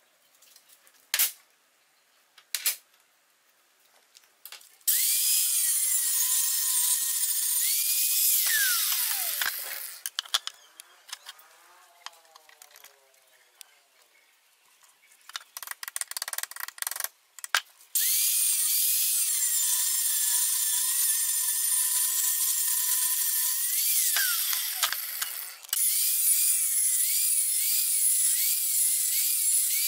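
Angle grinder with a cut-off disc cutting steel held in a vise, in three long runs. Its high whine wavers and sags as the disc bites, and twice falls away as it spins down between cuts. A few clicks and knocks of handling come at the start and in the gap.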